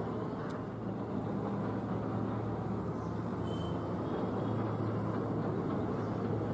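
ATR 72-600 twin-turboprop airliner in flight overhead: a steady low drone from its propellers and engines over a rushing haze.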